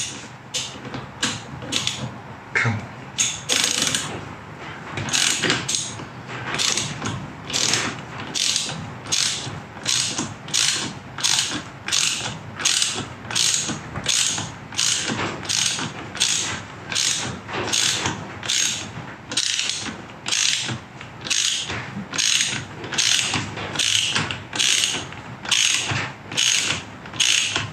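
Hand socket ratchet clicking in short back-and-forth strokes as it screws the top cap down onto a Triumph Daytona 955i front fork leg, in a steady rhythm of about three strokes every two seconds. The cap is only being run down snug, not torqued.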